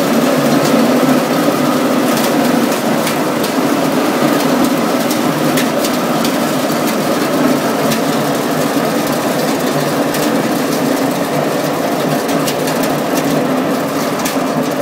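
Dry-type chickpea peeling machine running steadily, with peeled chickpeas pattering and clicking as they slide down its metal discharge chute.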